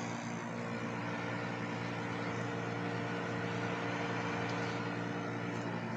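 Dehumidifiers running: a steady hum from their compressors under the even rush of their fans.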